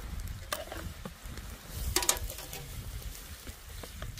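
Metal utensil clinking and scraping against a pan of vegetables frying in goose fat, a few sharp clicks over a low rumble.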